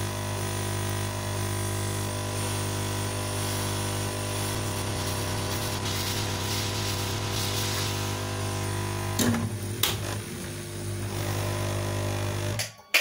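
Hot air rework gun blowing with a steady motor hum while reflowing a flash memory chip back onto a circuit board. There are two sharp taps past the middle, and the blower cuts off suddenly near the end, followed by a click.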